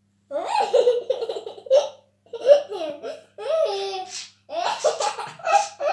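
Young child laughing in a run of high-pitched giggles, starting about a third of a second in and coming in bursts with short breaks.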